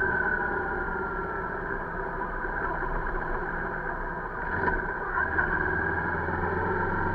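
Motorcycle engine running at road speed, heard from the bike itself together with road and wind noise. The engine note dips and then picks up again about four and a half seconds in.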